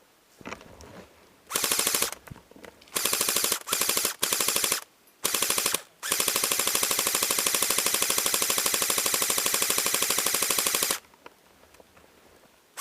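Airsoft rifle firing full-auto: a few short bursts of rapid, evenly spaced shots, then one long sustained burst of about five seconds.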